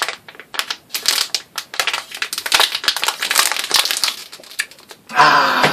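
A drink container being crinkled and crushed, a dense run of irregular crackles. Near the end comes a loud gasping breath from a man.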